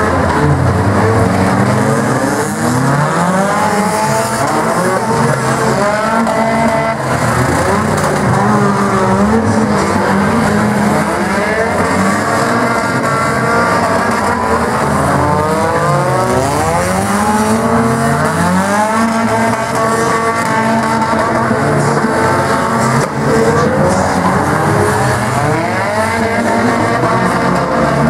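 Engines of several small compact cars racing on a figure-8 track, many revving up and down over one another without a break.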